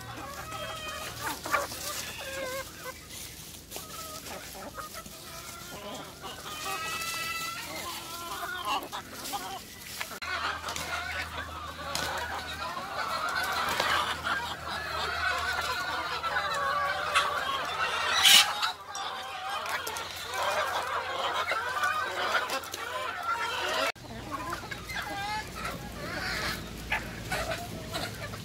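A flock of chickens clucking and calling, with roosters crowing among them. The calls overlap thickly in the middle. A single sharp click, the loudest sound, comes about two-thirds of the way through.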